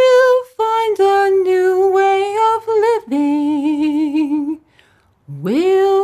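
A woman singing solo a cappella, sustained notes with a wavering vibrato that step down in pitch over the phrase. A short breath comes about four and a half seconds in, then a note that slides upward into the next line near the end.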